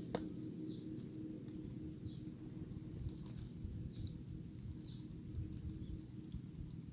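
Faint, short high chirps from a small animal, a handful of them spaced about a second apart, over a low steady outdoor rumble.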